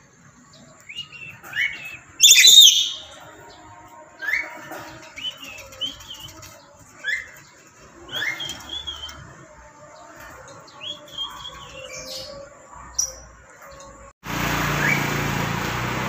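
Black-capped lory calling: a series of short rising whistles, with one loud harsh squawk about two seconds in. Near the end a loud steady rushing noise starts abruptly and covers everything.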